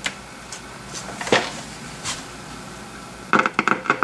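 Handling knocks and clicks on a radio workbench: a few scattered taps, one louder knock about a second in, and a quick clatter of several knocks near the end.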